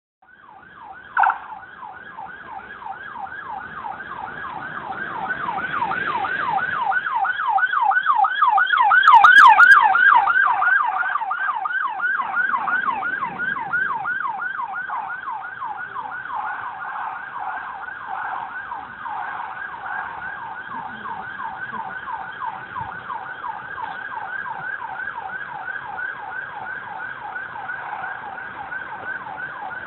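Emergency vehicle's electronic siren in fast yelp mode, its pitch sweeping up and down several times a second. It grows louder to a peak about ten seconds in, then slowly fades. A short knock sounds about a second in.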